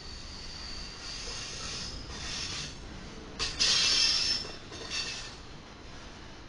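Freight train's double-stack container well cars rolling past with a steady low rumble of wheels on rail. Over it come bursts of high-pitched wheel squeal and hiss: the loudest lasts about a second, just past the middle, and a shorter one follows soon after.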